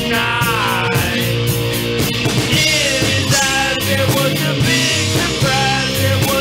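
Indie rock band playing a song: electric guitars, bass guitar and drum kit, with a melody line bending up and down in pitch over a steady beat.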